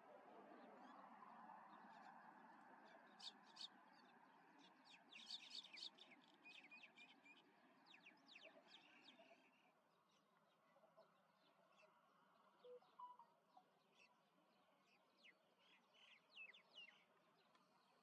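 Faint birdsong: clusters of short, high-pitched chirps and clicks come in bursts over a low, even background hum that drops away about ten seconds in.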